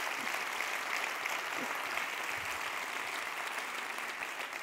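Large auditorium audience applauding, a dense, steady clapping that begins to ease near the end.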